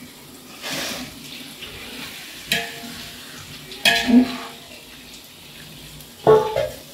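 Metal ladle stirring raw chicken into onion-tomato masala in an aluminium biryani pot, clanking against the pot three times. The masala sizzles underneath.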